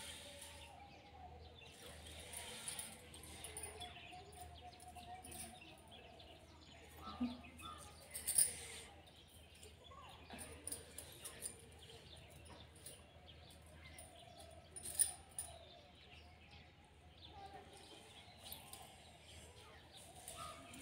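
Bangles on the wrists clinking now and then as the arms move, a few sharp short clinks over a faint background hum, the loudest about eight and fifteen seconds in.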